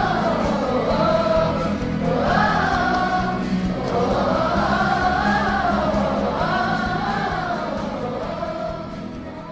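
A song with voices singing a slow, smoothly rising and falling melody over a steady accompaniment, fading out near the end.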